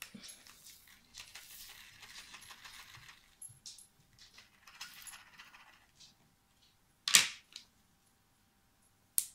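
Small plastic zip bags of square resin diamond-painting drills being handled, a crinkling rustle with the tiny drills clicking inside, in two spells. Then two sharp clicks, the louder about seven seconds in and another just after nine.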